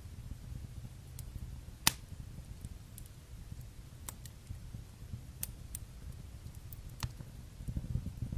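Fire in a fireplace crackling: scattered sharp pops over a low steady rumble, the loudest pop about two seconds in.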